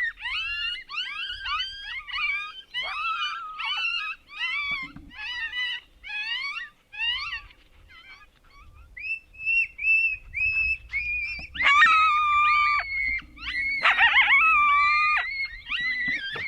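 Coyote yips and howls: a fast run of high, pitched yips and whines, a short lull, then held notes and loud, wavering howls near the end.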